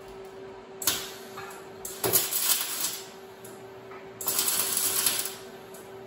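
MIG welder running .045 flux-core wire, laying three tack welds with the arc crackling: a brief one just under a second in, then two of about a second each. A steady low hum sits underneath.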